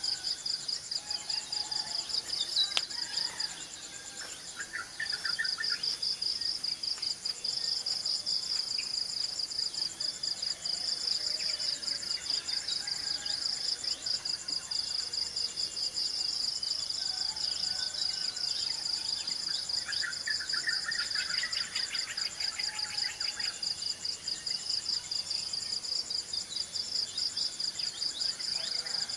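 A chorus of insects trilling in a steady fast pulse, dropping out briefly about four seconds in, with birds chirping now and then, most around twenty seconds in.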